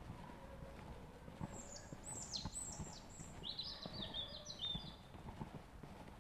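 Footsteps on a hard surface at an even walking pace, about two a second. From about a second and a half in to about five seconds a bird sings a run of high chirps: downward sweeps first, then short, quick notes.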